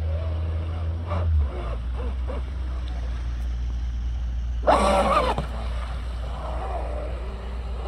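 Electric brushless-motor RC speedboat running on a pond, its faint whine rising and falling with throttle over a steady low rumble of wind on the microphone. About five seconds in there is a short, loud burst as the boat hooks and throws up a big splash of spray.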